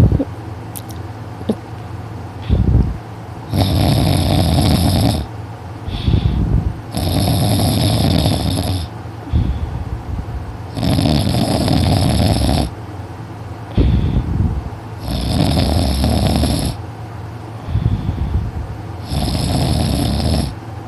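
A sleeping teenager snoring really loud and heavy: five long snores about four seconds apart, each with a shorter, lower breath sound between them.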